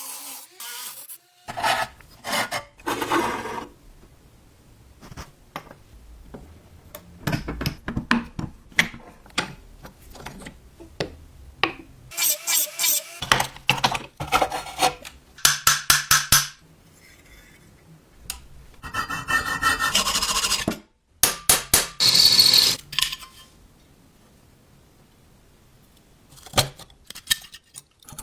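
Hand-tool work on the rusted steel body and parts of a 1970 Tonka toy fire truck: a series of short scraping and rubbing bursts with sharp clicks and knocks, broken by quiet gaps.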